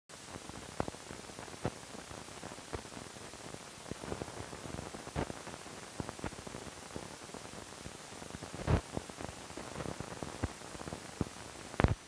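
Hiss and crackle of an old film soundtrack running over blank leader, with scattered clicks and pops. A louder pop comes about three-quarters of the way through and another just before the end.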